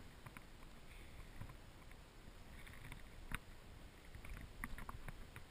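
Faint scuffling and soft clicks from small puppies play-wrestling on grass, with one sharper click about three seconds in.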